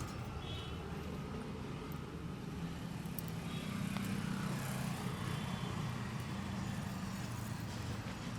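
Street traffic: a motor vehicle engine running close by with a steady low hum over general road noise, a little louder in the middle.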